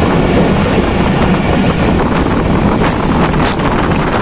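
Pakistan Railways passenger train running at speed, heard from on board: a steady rumble of wheels on rail with wind rushing over the microphone. A few sharp clicks come in the second half.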